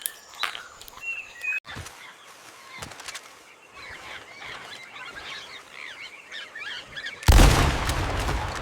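Faint bird chirps over outdoor ambience. About seven seconds in, a sudden loud burst of noise cuts in and fades over a couple of seconds.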